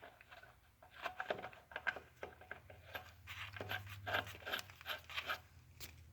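Rapid metal clicking and scraping as a large lug nut is spun by hand onto a threaded roto-lug, with one sharp click at the very start.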